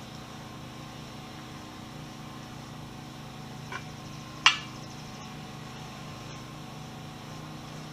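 Steady low hum in the background, with a faint tick and then one sharp metallic clink about four and a half seconds in, from the rod and rag being worked through a coilover strut body to clean it.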